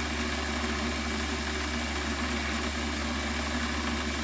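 Warco WM180 lathe running steadily, its motor and spindle humming at about 950 rpm.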